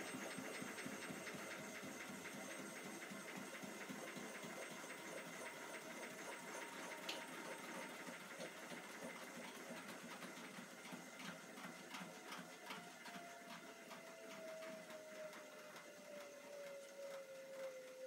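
Hotpoint front-loading washing machine running, its drum tumbling with water in it, making a steady mechanical churning. Over the second half a faint whine slowly falls in pitch.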